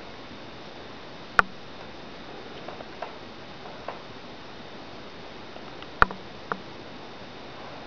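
A puppy chewing and mouthing a plush toy: a few sharp clicks, the loudest about a second and a half in and two close together around six seconds in, with fainter ticks between.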